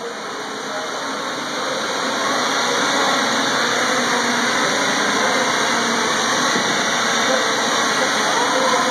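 Propellers of the ETFD2 quadcopter, whose rotors sit under a foam deck with cut airflow holes, spinning in flight: a steady whirring buzz that grows louder over the first three seconds and then holds.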